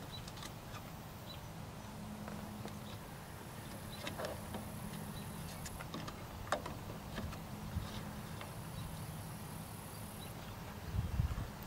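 Faint scattered clicks and taps of hands handling parts inside an electric RC model airplane's fuselage, with a short low thump near the end, over a low steady hum.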